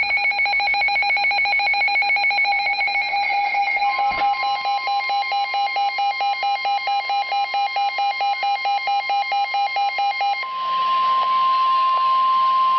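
Rapid, evenly pulsing electronic alert beeps, joined about four seconds in by the NOAA Weather Radio warning alarm tone, one steady high tone. The beeping stops about ten seconds in, leaving the alarm tone alone; the tone announces a tornado warning.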